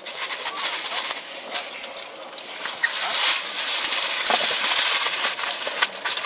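A hand splashing and scraping through wet slush and meltwater on the ice close by: a crackling, hissing wet noise with many small clicks, getting louder about three seconds in.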